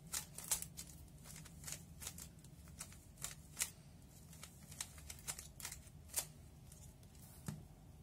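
3x3 speed cube being turned through an OLL algorithm: a string of faint, irregular plastic clicks as the layers are turned in quick succession.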